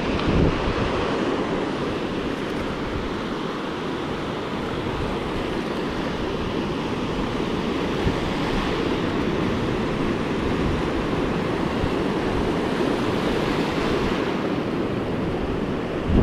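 Ocean surf washing up a sandy beach: a steady rush of breaking waves and foaming backwash.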